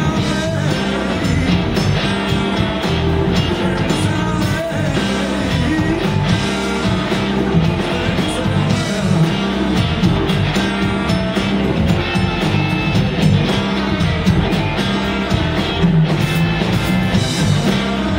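A live rock band playing loud and steady on electric guitar, bass, drums, keyboards and saxophone.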